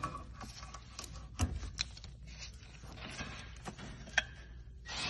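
Scattered light clicks, taps and knocks of hand work on engine-bay parts as a line is being unclipped for removal, with a few sharper clicks about one and a half seconds in and again near the end.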